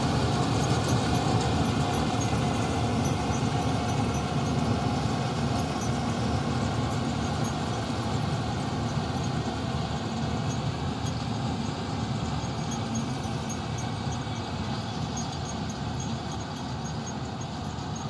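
Combine harvester running steadily while cutting rice paddy, a continuous engine and machinery drone that slowly grows fainter.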